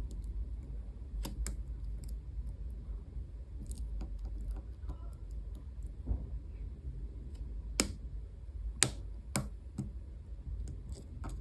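Lock picking tools working in an EVVA ICS high-security cylinder: scattered small metallic clicks and ticks as the spring-loaded sliders are picked. A few sharper clicks come about eight and nine seconds in.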